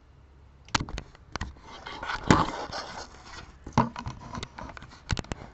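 Close-up knocks, scrapes and rustles of a dog scrambling about against the webcam and desk, with the loudest bump about two seconds in.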